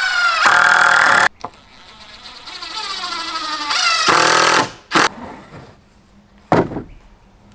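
Power drill driving screws into wood: the motor whines up in pitch as the trigger is squeezed, in two long loud runs and then two short bursts.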